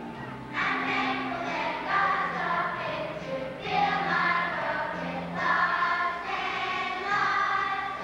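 Children's choir singing a song in phrases of a second or two over held low accompanying notes.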